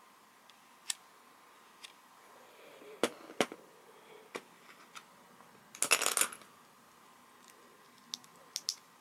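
Plastic LEGO pieces clicking as they are handled and pressed together: single sharp clicks, the loudest two close together about three seconds in, and a brief rattle of loose pieces clattering about six seconds in.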